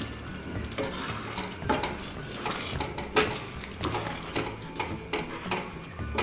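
A wooden spatula stirring Manchurian balls through thick, hot gravy in a non-stick pan. It gives irregular taps and scrapes against the pan over a steady sizzle from the gravy.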